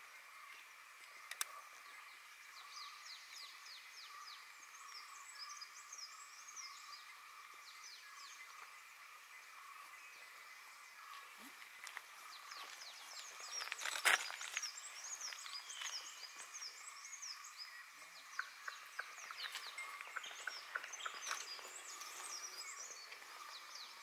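Many birds calling with quick, high, falling chirps over a steady high hum of insects, with a sharp click about fourteen seconds in.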